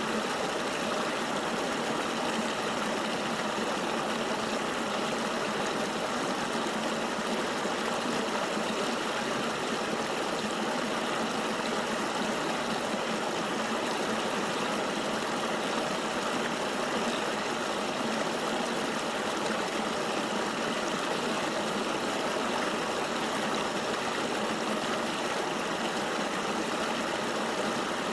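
Steady rush of a flowing forest river, an even hiss of moving water with no separate splashes or other sounds.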